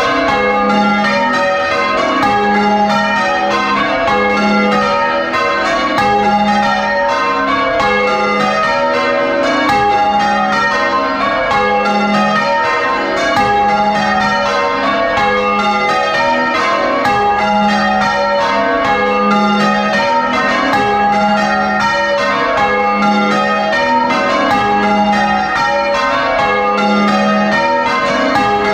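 A ring of six church bells, tenor 9 cwt in A♭, rung full-circle in changes, heard close up in the bell chamber. There is an unbroken stream of strikes, with a low note coming round about every two seconds.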